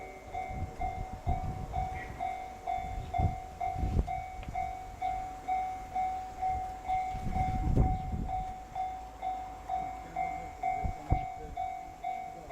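Railway level-crossing warning bell ringing steadily, about two strikes a second. Under it come heavy low chuffs and rumbles from the double-headed D51 and C56 steam train, loudest around a third of the way in and again past the middle.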